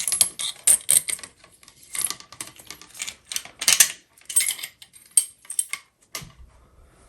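Small faucet parts clicking and rattling as they are handled and taken off, in irregular bursts of rapid clicks that thin out near the end.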